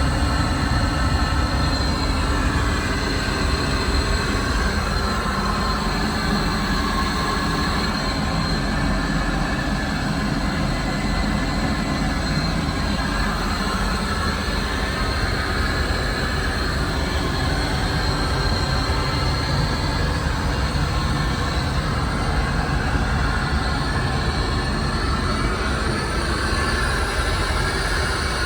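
Steady running noise from inside a moving vehicle: a constant low rumble with a faint high whine, unchanging throughout.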